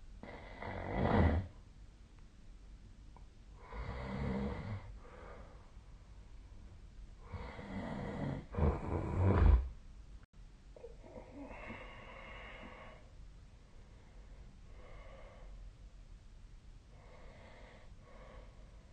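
A sleeping person snoring: rough snores every few seconds, the loudest about a second in and a double one around eight to nine seconds in, then softer, shorter snores toward the end.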